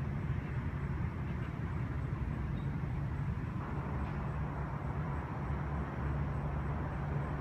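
Steady low rumble of outdoor road traffic noise.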